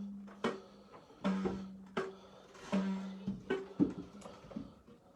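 Plucked strings of a homemade instrument playing a short figure: a low note rung about every one and a half seconds, with quicker, higher plucks between.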